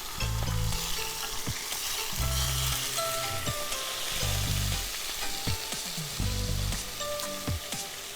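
Tuna steak frying in hot oil with onion in a pan, a steady sizzle with scattered sharp clicks of a utensil against the pan.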